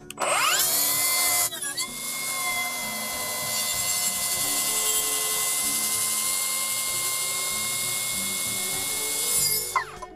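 Milwaukee plunge track saw spinning up with a rising whine, then cutting along its guide rail through a birdseye maple board with a steady high whine. The pitch drops slightly as the blade bites in about a second and a half in, and it winds down with a falling whine near the end.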